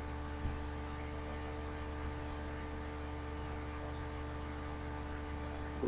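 Steady electrical hum, several constant tones over a faint hiss: background noise of the recording chain, with a faint click about half a second in.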